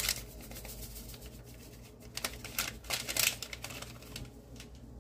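Packet of vanilla pudding mix crinkling and rustling as it is squeezed and shaken empty over a bowl of milk, with a cluster of sharper crackles about halfway through.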